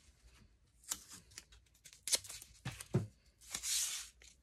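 Handling noises while dollhouse wall pieces are taped together: a few scattered light knocks and taps, then about three and a half seconds in a short rasp of tape being pulled off its roll.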